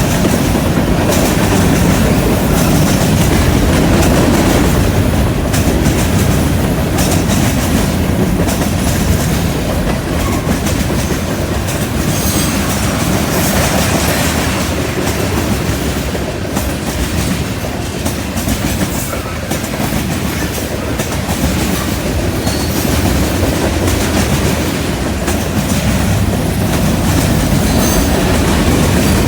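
Freight train cars rolling steadily past, their wheels clacking rhythmically over rail joints and switch points.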